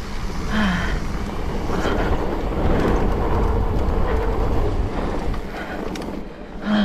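Mountain bike riding along a dirt trail: wind buffeting the microphone and tyres rumbling over the ground, loudest in the middle seconds. A short breath from the rider comes about half a second in and again at the end.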